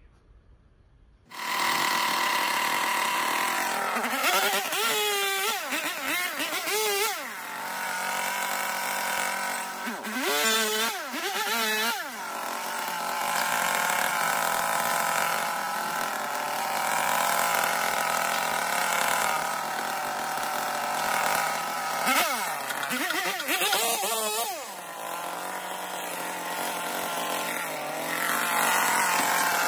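A petrol brush cutter's small engine comes in suddenly about a second in and runs at high speed while it cuts through weeds and brush. Its pitch dips and recovers three times as the cutting head takes on and sheds the load.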